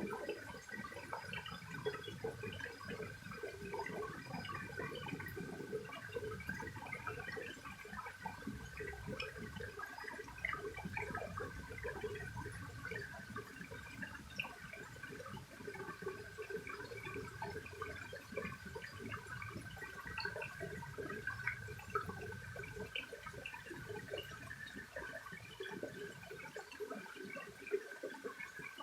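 Mountain stream water running and babbling over rocks, a continuous gurgling patter with a steady thin high tone beneath it.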